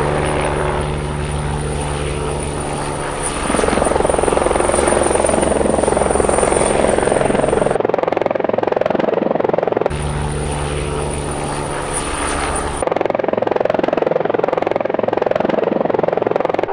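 Helicopter sound effect: a steady turbine whine under rushing rotor noise, getting louder about three and a half seconds in.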